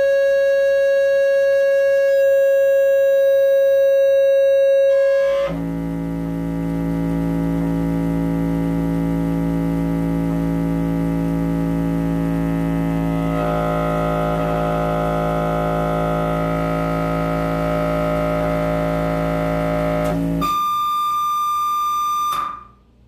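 Sustained electronic synthesizer tones held steady and switched in steps: a single high tone, then about five seconds in a lower, buzzier drone with higher tones added about halfway through, then a high tone near the end that cuts off abruptly.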